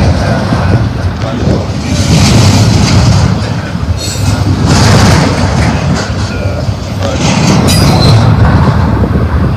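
Double-stack intermodal well cars rolling past close by: a loud, steady rumble of steel wheels on rail that swells and eases as the trucks go by, with a few brief high wheel squeals.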